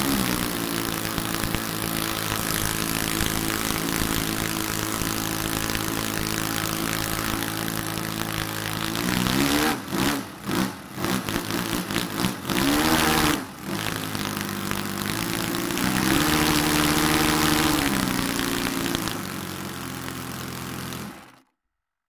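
Two OS Max FS40 Surpass four-stroke glow engines on a twin-engine model plane running with their propellers turning, the pitch dropping just after the start. The pitch rises and falls several times in the middle as the throttles are worked. It then settles lower and stops suddenly near the end as the engines are shut down.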